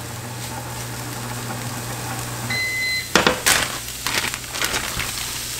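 Microwave oven running with a steady hum, then a single beep about two and a half seconds in as the hum stops. A loud clack follows, then several lighter clicks and knocks.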